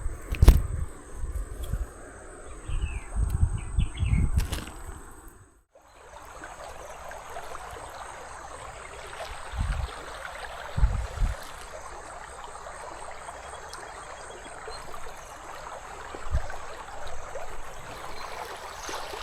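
River water running steadily over rocks, an even rushing noise. In the first few seconds there are low thumps of wind or handling on the microphone and a few faint bird chirps, then the sound cuts out briefly before the rushing water takes over.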